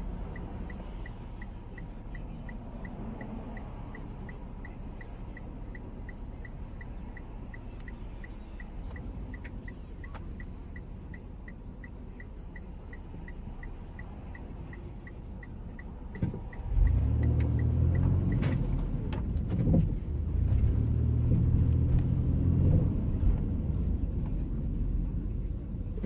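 Car engine running, heard from inside the cabin, with the turn-signal relay ticking steadily about three times a second. The ticking stops about two-thirds of the way in as a much louder low rumble takes over.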